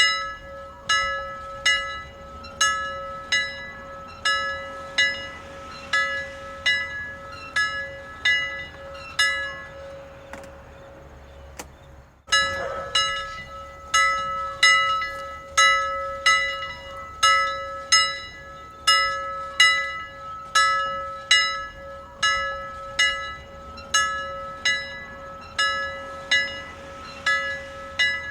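A single bell rung repeatedly, a little over one stroke a second, each stroke ringing with bright overtones while the bell's lower tone hums on between strokes. About ten seconds in the strokes fade away, and after an abrupt cut the ringing starts again at the same pace.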